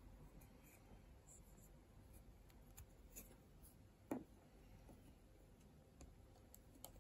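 Faint clicks and rubbing of small plastic DAISO Petit Block mini-blocks handled in the fingers, with one soft knock about four seconds in as the block model is set down on a table.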